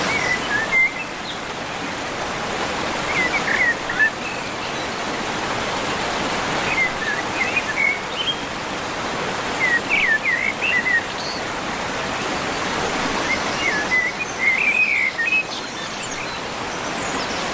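Steady rush of running water, with a bird chirping in short bursts of quick rising and falling notes every few seconds.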